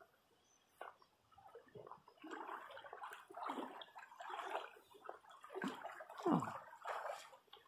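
Water splashing and sloshing in irregular bursts that build over a few seconds, loudest near the end, as a hooked fish thrashes at the surface close in.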